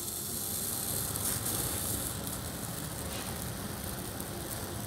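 Small zeolite filter granules pouring from a plastic jerrycan through a spout into a clear plastic filter cup: a steady trickling hiss of falling grains.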